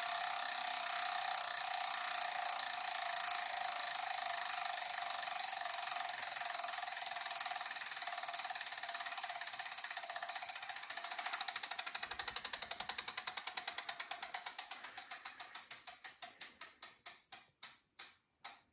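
Saris H3 direct-drive trainer's freehub pawls ticking rapidly as the flywheel coasts down. The clicks slow into separate ticks and stop near the end.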